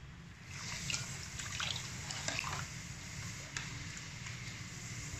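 A cup of water poured into a pot of cooked lentils, trickling and splashing.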